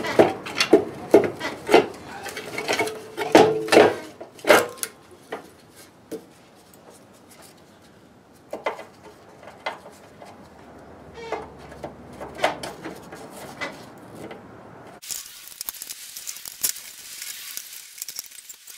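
Metal parts of a kerosene heater clinking and knocking as they are handled and fitted together, with many sharp clicks in the first few seconds and scattered ones after. A steady high hiss comes in during the last few seconds.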